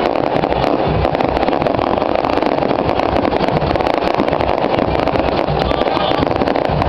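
Loud, steady din of a large outdoor crowd, crackling and rumbling as it overloads the camera microphone.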